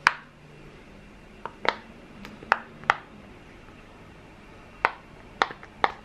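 Large rainbow silicone push-pop fidget toy having its bubbles pressed, giving sharp single pops at irregular intervals, about eight in all.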